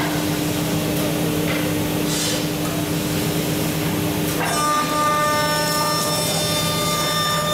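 5-axis CNC router's HS 652 spindle milling curved wooden stair-handrail blocks, a steady machine hum with cutting noise. About four and a half seconds in, a set of high steady whining tones comes in and holds.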